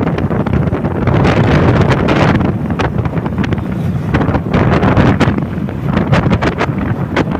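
Heavy wind buffeting the microphone of a moving motorcycle at road speed, a loud rushing noise that surges and drops in gusts.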